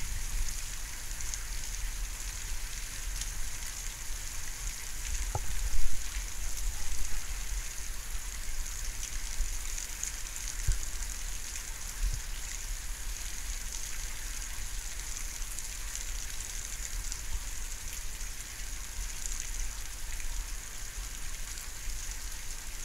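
Thunderstorm rain falling steadily: an even hiss with scattered sharper drips and ticks, the loudest knock about six seconds in.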